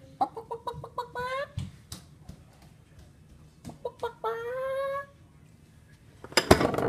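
A person imitating a chicken: a run of short clucks ending in a longer rising squawk, done twice. A sudden loud burst of noise comes near the end.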